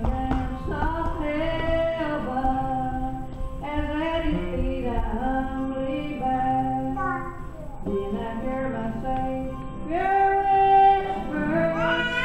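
A woman singing a gospel song, phrase after phrase of held notes.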